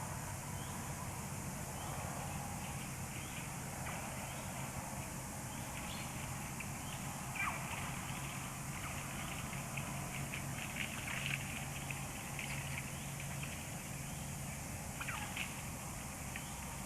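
A few short, sharp, high animal calls, squeak-like and falling in pitch, about a third of the way in, in the middle and near the end, over a steady outdoor hiss and low hum.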